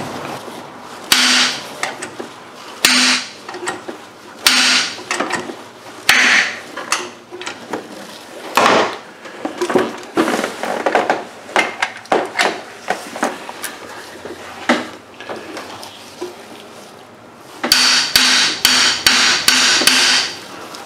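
Hammer blows on a wrench fitted to the harmonic balancer bolt, striking to shock the stuck bolt loose. Single ringing metal blows come about every two seconds, then a lighter clatter of tools, then a quick run of several blows near the end.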